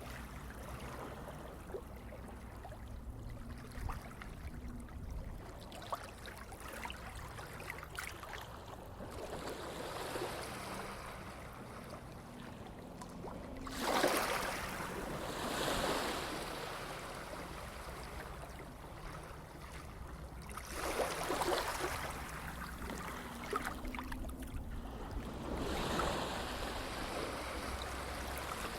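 Sea waves washing in and running back, a steady hiss of water that swells into louder surges about halfway through and a few more times after it.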